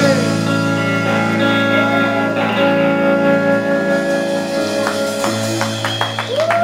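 Live band playing an instrumental passage: guitar chords held and ringing over drums.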